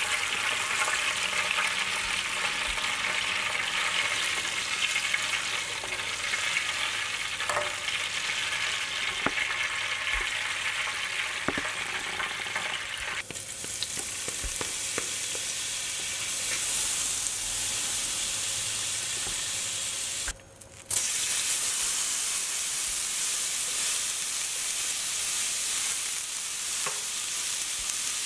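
Hot oil sizzling steadily as fish steaks fry in a nonstick pan, with scattered clicks of metal tongs against the pan. About halfway through the sizzle changes to that of margarine melting in the pan. After a brief break about three quarters through, it turns to a brighter, higher sizzle of broccoli and chili stir-frying.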